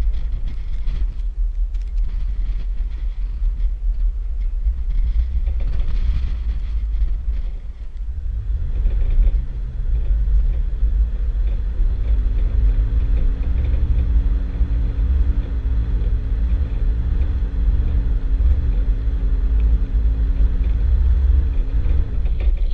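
Off-road vehicle driving on sand, heard through a hood-mounted camera with heavy wind rumble on the microphone. From about eight seconds in the engine's drone comes through clearly, rising a little in pitch and then holding steady.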